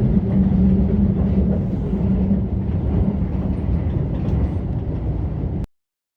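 Keio Line electric train running: a steady rumble with a low hum that cuts off suddenly near the end.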